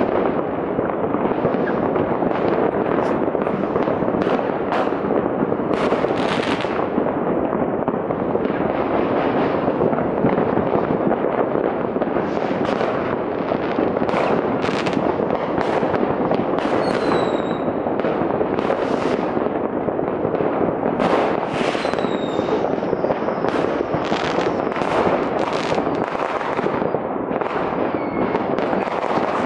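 Many firecrackers and rockets going off across a city at once, heard from a distance as a continuous crackling din. Sharper bangs stand out every second or so, and a few whistles fall in pitch.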